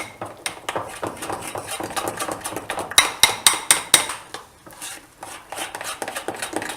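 Besan (gram flour) batter being stirred in a bowl by hand, the utensil clicking rapidly against the bowl. About three seconds in comes a run of about six louder, sharper clinks.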